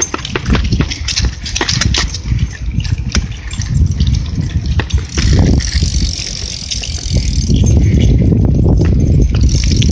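Wind rushing over the microphone of a camera held on a moving bicycle: a loud, low rumble that grows heavier about halfway through. There are sharp clicks and rattles in the first three seconds.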